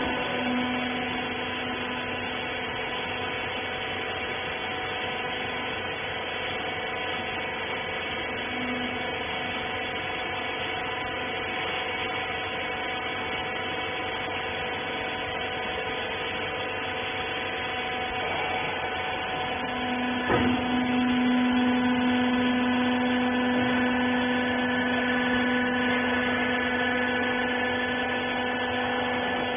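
Hydraulic rag baler's electric motor and pump running with a steady hum. About twenty seconds in there is a click, and the hum grows louder and stays louder.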